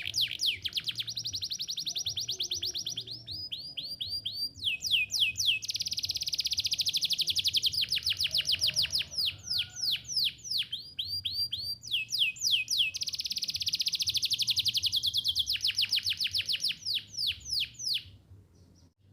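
Canary singing: long trills of rapidly repeated high notes, broken by phrases of slower, downward-sweeping notes, stopping near the end.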